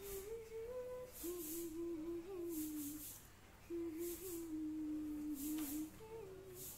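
A woman humming a slow tune in a single soft voice, stepping between a few notes in short phrases, with brief pauses about three and six seconds in. Soft hissy brushes come about every second and a half under the hum.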